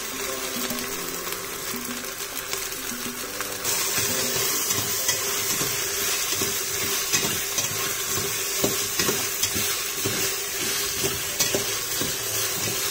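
Sliced onions sizzling in hot oil and ghee in a pressure cooker, stirred with a steel spatula that scrapes the pot. The sizzle grows louder about four seconds in, with repeated scraping strokes from then on.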